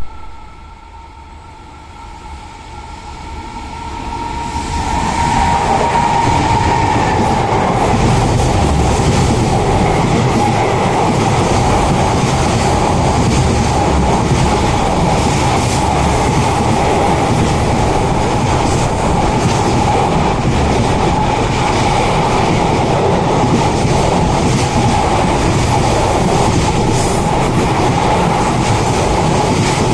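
A freight train hauled by an EF210 electric locomotive passing: it grows louder over the first few seconds, then a long steady rumble of freight wagons rolling by with wheels clattering over the rails.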